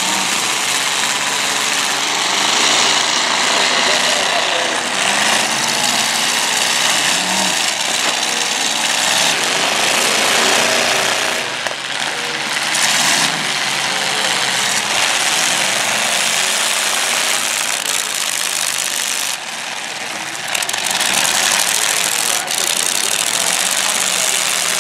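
Engines of several demolition derby cars running and revving hard together, loud and continuous, with a sharp bang near the end.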